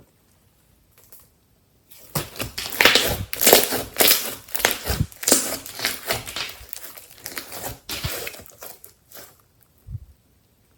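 Dense crackling and crunching of something brittle being crushed and worked into slime by hand. It starts about two seconds in and fades out near the end.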